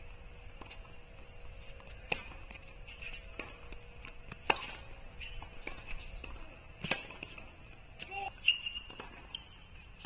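Tennis rally outdoors: a ball struck back and forth by racket strings, with sharp hits about every two and a half seconds. A faint steady high-pitched hum lies under the hits.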